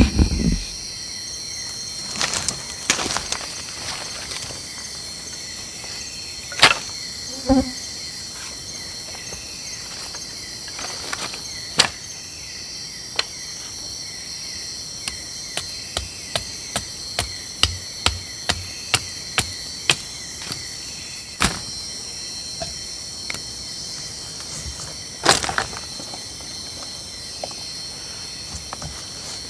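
Night insects, crickets among them, chirring steadily at a high pitch. Over them come a series of sharp knocks and snaps, at times one or two a second, as dry bamboo is split and shaved by hand for fire tinder.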